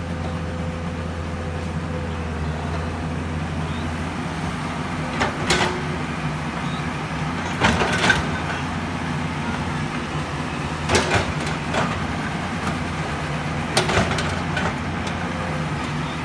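Excavator's diesel engine running steadily, with groups of short sharp clanks from the working machine every few seconds.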